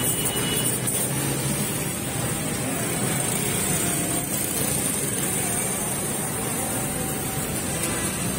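Espresso machine steam wand hissing steadily in a stainless-steel jug of milk, steaming the milk for a cappuccino.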